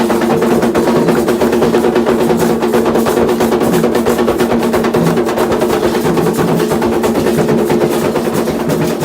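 Candomblé ritual drumming: fast, continuous hand drumming in quick rolls over a steady sustained tone.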